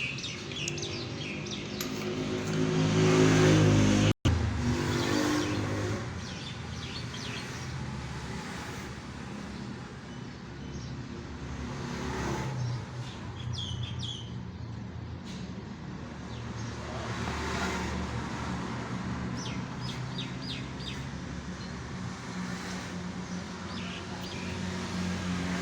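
Honda CD 70's small single-cylinder four-stroke engine running, revved up over the first few seconds and then running steadily at a lower speed. Birds chirp faintly in the background.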